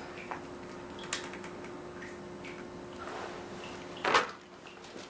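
Mobile phone keys being pressed to dial, with a few faint short high beeps over a low steady hum. About four seconds in there is one brief, louder rustle, the loudest sound here.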